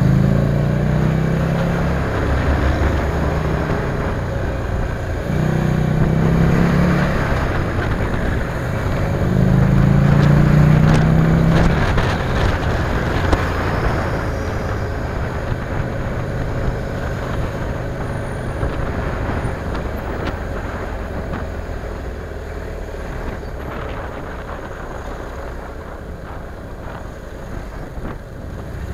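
Motorcycle engine running under way in city traffic, louder in three spells during the first twelve seconds as it pulls, then steadier and gradually easing off. A constant rush of wind and road noise runs under it.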